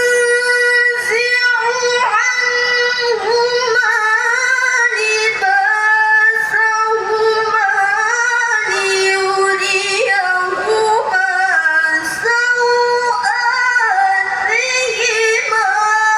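A woman reciting the Quran in the melodic tilawah style, holding long notes that bend and slide in pitch, with a few short pauses.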